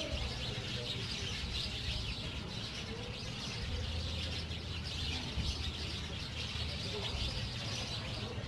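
Outdoor rural ambience: steady bird chirping throughout, faint voices now and then, and a low rumble underneath.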